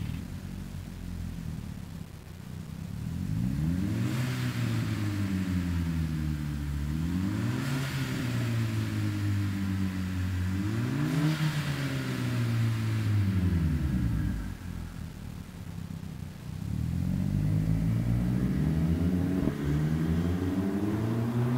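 Audi TT running through a MagnaFlow performance exhaust: idling, then revved three times, each rev rising and falling back, before settling to idle. It then accelerates away, the note climbing, with a brief dip near the end as it shifts gear.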